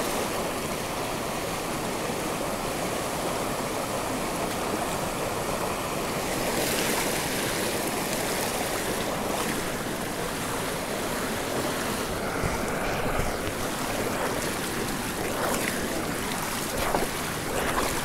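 Shallow rocky stream rushing steadily over boulders, with feet splashing as they wade through it near the end.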